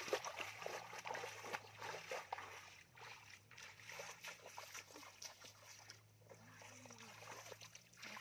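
Bare feet wading through shallow muddy water, with many short, irregular splashes and sloshes at each step. A faint steady low hum runs underneath.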